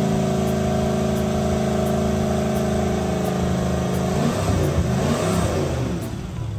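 Freshly rebuilt MerCruiser 8.1 Horizon big-block V8 held steady at high revs, about 3,300 RPM. About four seconds in it is revved higher, to around 4,000 RPM, and near the end the throttle is closed and the revs fall away.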